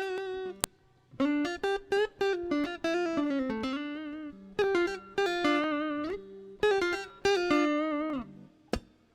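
Electric guitar played clean through a Zoom G1X ON multi-effects pedal with its compressor on slow attack, picking a single-note melodic phrase with bends and vibrato and some reverb on it. A sharp click comes about half a second in, and the notes stop near the end.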